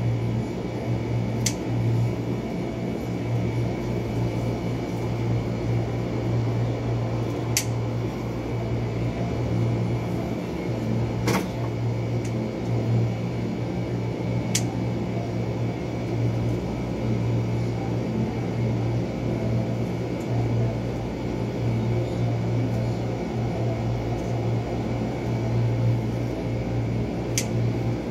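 A motor-driven cooling fan unit humming steadily, with a low hum throughout. A handful of short sharp clicks, about five, are scattered through it.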